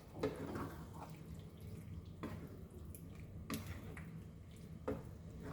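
A spoon stirring chicken pieces in a thick curd-and-masala curry in a pot, with a few light knocks of the spoon against the pot.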